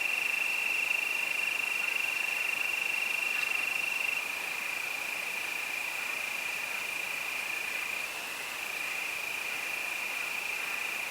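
Crickets singing a steady, continuous high trill. About four seconds in it drops a little in loudness and pitch.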